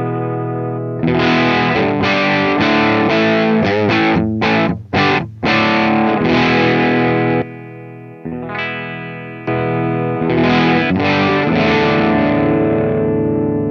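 Gibson Les Paul electric guitar played through the LPD K-1 overdrive pedal into a Suhr PT15 amp: distorted chords strummed and left to ring. There are a few short, choppy chords about five seconds in and a brief pause near the middle.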